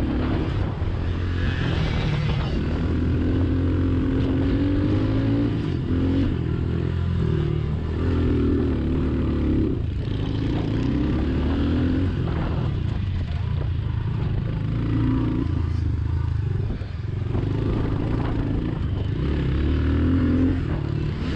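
Honda CRF110 pit bike's small air-cooled single-cylinder four-stroke engine under throttle on a dirt track, revving up and down, its pitch rising and then dropping back again and again.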